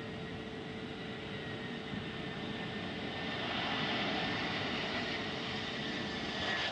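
Jet engines of an Airbus A320-family airliner on approach, a steady rushing noise that swells gently over the first few seconds, with a faint steady tone underneath.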